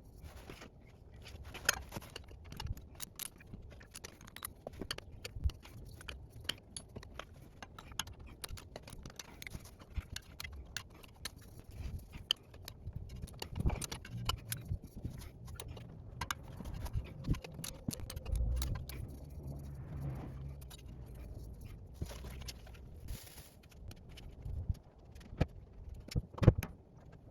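Irregular metallic clinks, taps and rattles of hand tools, a spanner being handled and fitted around the oil drain plug under the car.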